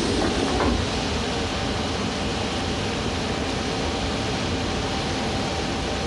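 Metro train and underground station noise: a steady rumble and hiss, with a faint steady whine joining about a second in.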